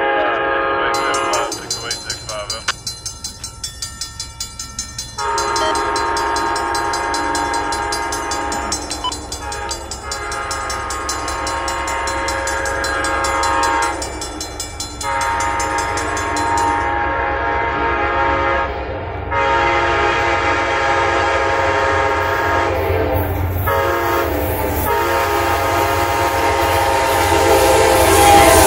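Amtrak GE P42DC locomotive's horn sounding a series of long blasts with short breaks for a grade crossing as the train approaches, its pitch dropping at the end as the lead locomotive passes.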